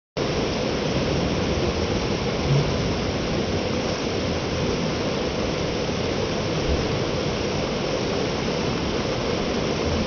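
Waterfall pouring down a rock face into a shallow pool: a steady, even rush of falling water.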